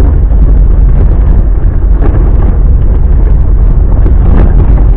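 Off-road car driving along a rutted dirt track, heard from inside the cabin: a loud, steady low rumble of the engine and the tyres on rough ground.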